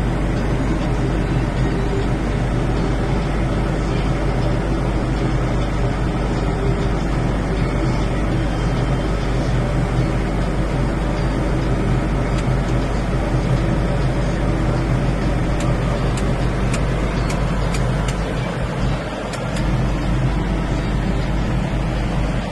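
Tractor-drawn Cicoria HD1270 big square baler running, the tractor engine giving a steady low hum with a few faint clicks from the machinery.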